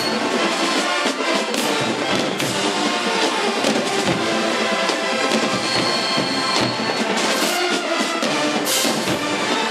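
HBCU show-style marching band playing, brass over a driving drum beat.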